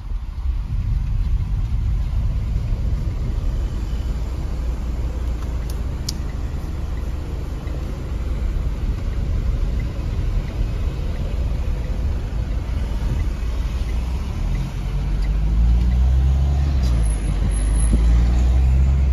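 Car engine and road noise heard from inside the cabin as the car drives slowly. In the last few seconds the engine note rises and falls and grows louder as the car speeds up.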